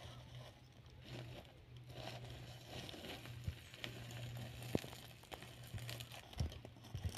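A wooden stick pushing and poking through dry charcoal embers and ash, with scattered light clicks and crunches of coal pieces and the crinkle of aluminium-foil parcels being nudged into the coals, over a faint steady low hum.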